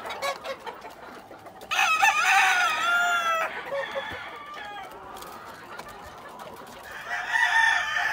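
Gamefowl roosters crowing: one long crow about two seconds in, and another starting near the end.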